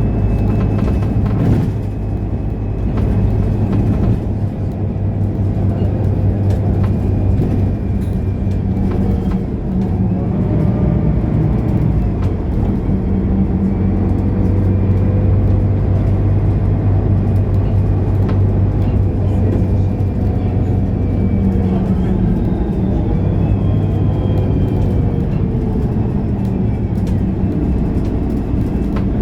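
Mercedes-Benz O530 Citaro Ü city bus under way, its diesel engine and drivetrain running with a steady drone and a faint whine that rises and falls slightly.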